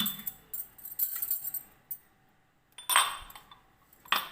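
Kitchen utensils clinking and scraping: a strike and a second or so of light scraping and small clicks, then a loud ringing clink about three seconds in and another near the end.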